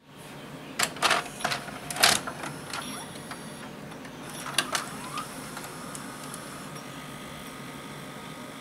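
Samsung SV-650B VHS VCR taking in a cassette: a quick run of plastic-and-metal clicks and clunks as the tape is pushed in and the loading carriage draws it down, then another clatter about four and a half seconds in. A faint rising whine follows and settles into a steady motor hum.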